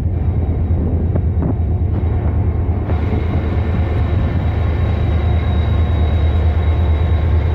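Diesel locomotive idling at a standstill: a loud, steady low engine rumble with a thin, steady high whine above it that grows stronger about three seconds in.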